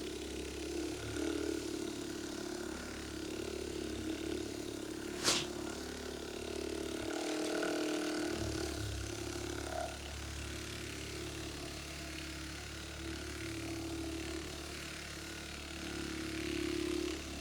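Steady low mechanical hum, like a motor running, with one sharp click about five seconds in.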